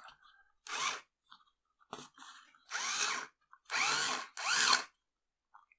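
Small DC motor of an Einhell Bavaria BAS 3,6 cordless screwdriver, run from test clips, spinning up and winding down in several short bursts as its forward/reverse buttons are pressed; the pitch of each burst rises and falls. The freshly resoldered buttons now switch the motor on.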